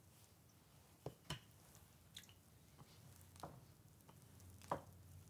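Wooden rolling pin rolling out yeast dough on a wooden board: quiet, with about five soft knocks as the pin presses and bumps against the dough and board.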